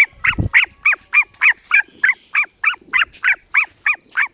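Cockatiel calling over and over, a steady run of short, downward-sliding calls at about three to four a second. A brief low rumble sounds about half a second in.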